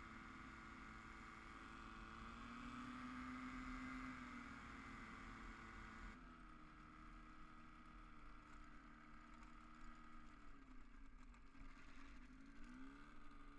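Paramotor trike's propeller engine running faint and steady at low throttle. The sound eases off about halfway through, and the pitch falls and then rises again near the end as the trike lands and rolls on the grass.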